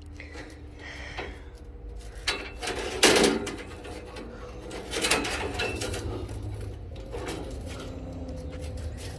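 Sawmill band blade being handled and fitted: a few metallic clanks and rattles, the loudest about three seconds in and another about five seconds in, over a low steady hum.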